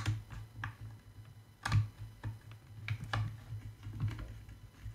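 Scattered light clicks and taps of hands handling the plastic body of a Hubsan Zino Pro drone around its gimbal guard, over a faint steady low hum.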